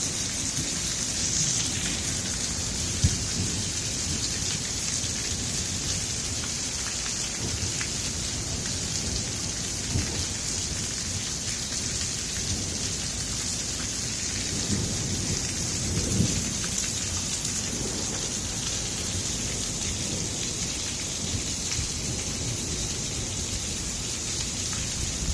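Very heavy rain pouring steadily, with water running off the roof and rain gutter, and low rumbles of thunder partway through.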